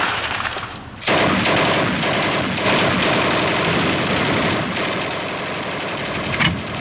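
Heavy machine gun firing sustained rapid automatic fire, beginning about a second in, with a sharp louder bang near the end.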